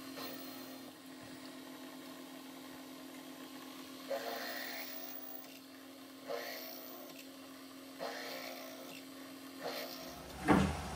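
Drill press running with a steady hum while a drill bit opens up a pilot hole in a metal shim to a clearance hole, with short bursts of cutting noise about four, six and eight seconds in. The hum stops near the end, and a couple of louder knocks follow.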